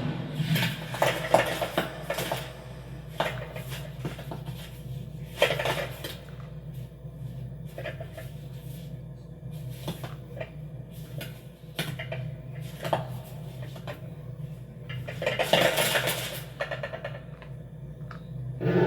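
Metallic clinking and clattering, a run of sharp clicks and knocks with louder clusters at the start, about five seconds in and near the end, over a steady low hum.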